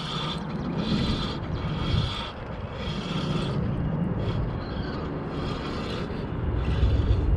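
Shimano Ultegra spinning reel being cranked to retrieve a hooked shad, the turning handle and gears making a pulse about once a second over a low rumble.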